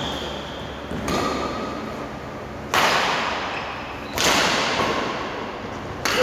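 Badminton rackets striking the shuttlecock in a rally: three sharp cracks about a second and a half apart, each ringing on in the hall's echo. An overhead smash falls about four seconds in.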